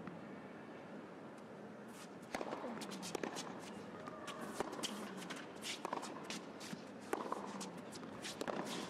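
Tennis rally on an indoor hard court: a few ball bounces before the serve, then from about two seconds in sharp racket strikes and ball bounces, with sneakers squeaking on the court.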